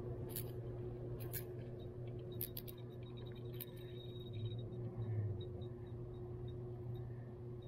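Spinning reel being worked while a hooked trout is played: a quiet steady hum with a handful of sharp clicks in the first four seconds.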